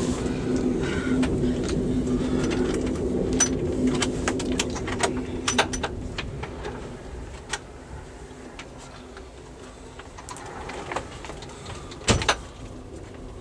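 Amtrak California Zephyr passenger train rolling through a tunnel: a loud rumble with a steady low hum and scattered wheel clicks, which drops to a quieter rolling noise about six seconds in as the train comes out into the open. A quick cluster of sharp knocks comes near the end.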